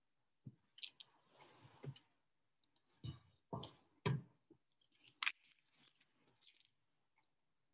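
Faint handling noise close to the microphone: a scatter of soft knocks and clicks with short stretches of rustling, the loudest knocks near the middle.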